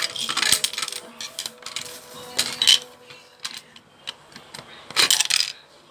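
Clicking and rattling of small hard pieces against plastic as a toy candy vending machine is handled, in three short bursts about two seconds apart.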